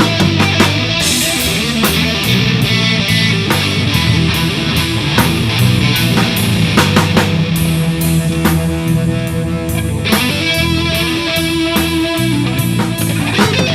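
Live electric rock jam by a trio: electric guitar, bass guitar and drum kit playing a heavy rock groove, with sustained, wavering guitar notes near the end.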